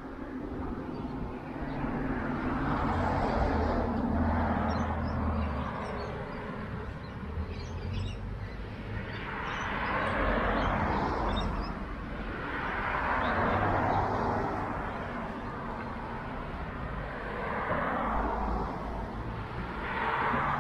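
Outdoor street ambience on a windy day: four or five rushing swells that rise and fall over a few seconds each, over a low rumble of wind on the microphone. Faint high chirps come through in the middle.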